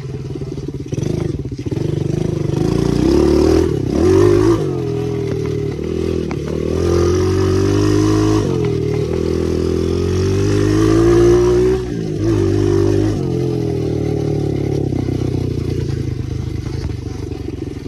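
Small dirt bike engine being ridden, its revs climbing and dropping repeatedly as the throttle opens and closes. It is loudest on the hard pulls about four seconds in and again near eleven seconds.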